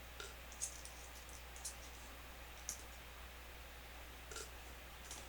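Faint, scattered light clicks, about five in all, from small miniature-kit pieces and packaging being handled, over a low steady background hum.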